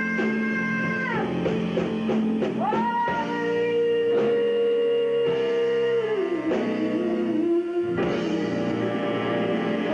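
Live small jazz band playing a slow ballad: a woman's voice holds long notes that slide up or down at their ends, over guitar, piano, bass, drums and saxophone.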